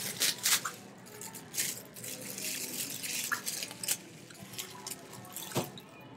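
Scattered short wet clicks and soft rustles of a paper napkin being rubbed over greasy fingers, with lip and mouth clicks of chewing. The clicks are thick in the first two seconds and sparser after.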